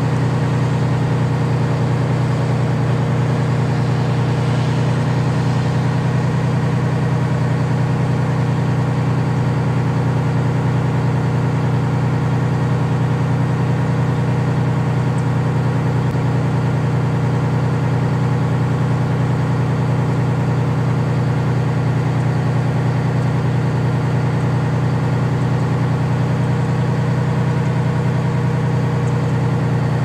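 Engine running steadily at a constant speed: a low, even drone that holds the same pitch and loudness throughout.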